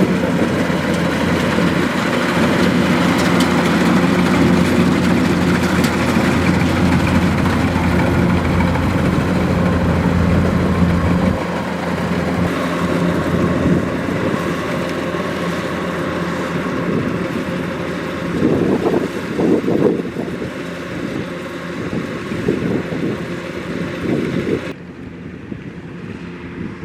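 Kubota DC-105X rice combine harvester's diesel engine running steadily. About 11 seconds in its low hum drops off, and near the end the sound suddenly turns quieter and duller.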